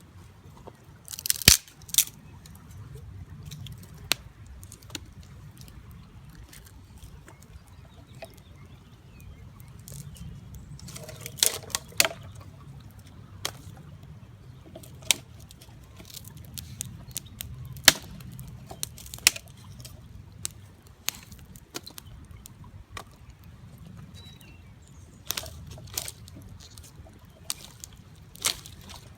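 Wood campfire crackling, with scattered sharp snaps and pops and a couple of louder bursts, about a second and a half in and again about twelve seconds in.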